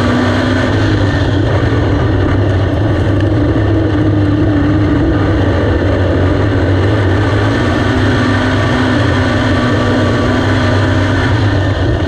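Big-block dirt modified's V8 engine heard from inside the car, running on track at a fairly steady pitch with slight rises and dips.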